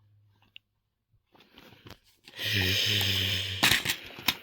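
Plastic shrink-wrap being torn and crinkled off a DVD case for about a second, followed near the end by two sharp clicks, typical of the case being opened.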